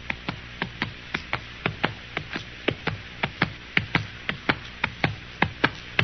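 Radio-drama sound effect of a horse's hooves: a quick, even clip-clop of hoofbeats, about six a second.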